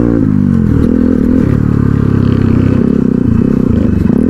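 Motorcycle engine heard from the rider's seat, its revs falling near the start as the throttle eases off, then running at lower revs with uneven small rises and dips over a rough dirt track.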